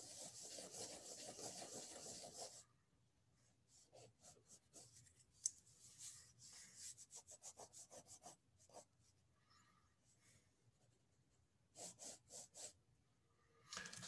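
Faint scratching of a drawing tool on paper while sketching: a run of quick continuous strokes for the first couple of seconds, then scattered short separate strokes in the middle, and a few more near the end.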